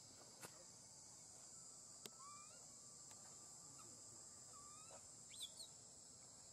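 Faint outdoor ambience: a steady high-pitched drone of insects, with a few short rising chirps, the loudest about five seconds in, and a couple of soft clicks.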